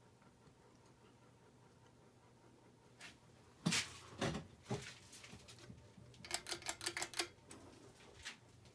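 A faint steady hum, then a few sharp clicks and knocks about four seconds in, followed by a quick rattle of small clicks about a second long.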